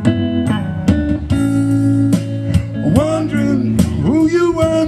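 Live blues duo playing an instrumental passage on electric guitar and electric bass under a steady low bass note, with notes that bend up and down in pitch in the second half.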